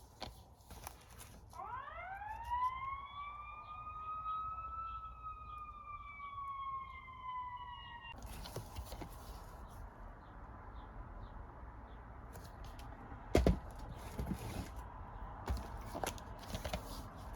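A siren wails once, rising quickly and then sliding slowly down before cutting off abruptly. Scattered clicks and rustles of handling follow, with one louder knock partway through.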